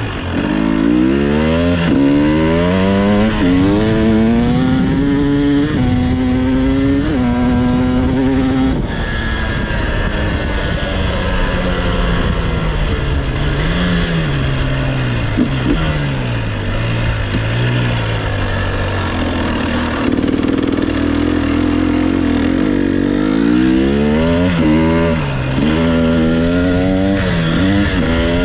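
KTM 300 XC-W two-stroke dirt bike engine heard from the rider's seat, revving up again and again as the throttle is opened and shut on tight trail. For the first several seconds the pitch climbs about once a second, then it runs lower and more evenly for a while before the quick rev-ups return near the end.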